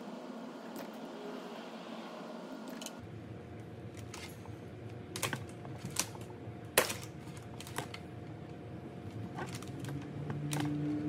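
Soft rubbing as a roll of Kapton tape is passed around a wire bundle held in a bench vise. Then come about six irregular light clicks and taps as the wires are twisted together by hand into a concentric harness.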